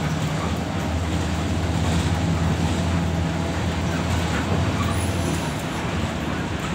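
Bus under way on a highway, heard from inside the cabin behind the driver: a steady low engine drone over tyre and road noise. The drone eases a little near the end.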